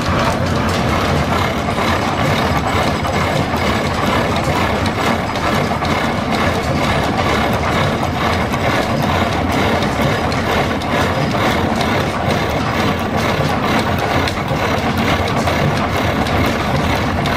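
Brown & Sharpe horizontal milling machine taking a steady cut in steel, its milling cutter turning through the work with a fine, rapid chatter of teeth, under the running hum of its belt drive.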